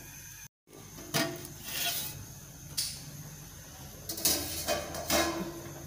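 A steel cooking pot of beef stock coming to the boil, with several short clatters and scrapes of metal pot and lid handling.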